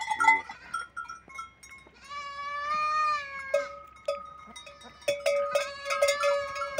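Goat bleating: one long call about two seconds in and another near the end. A metal bell clanks and rings repeatedly through the second half.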